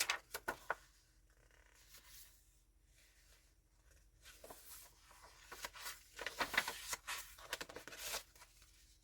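Paper pages of a handmade junk journal being turned and handled: a few short rustles at the start, a quiet stretch, then a longer patch of rustling from about four seconds in.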